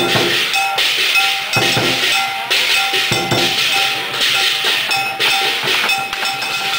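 Traditional Chinese percussion playing a steady beat: drum strokes, clashing cymbals and a ringing metal bell or gong tone.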